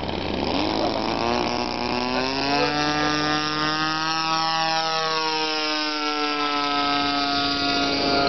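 Radio-controlled model warplane's engine buzzing as the plane flies a low pass, its pitch rising over the first few seconds and then slowly falling as it goes by.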